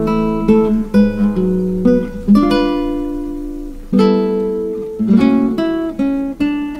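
Background music: a plucked guitar melody, each note starting sharply and ringing out as it fades.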